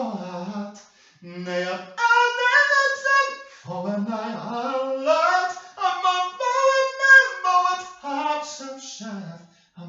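A single voice singing unaccompanied, sliding in pitch between long held notes, with short breaks for breath.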